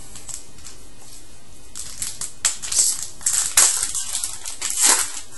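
Foil wrapper of a trading-card pack being crinkled and torn open by hand: a burst of irregular sharp crackling that starts about two seconds in.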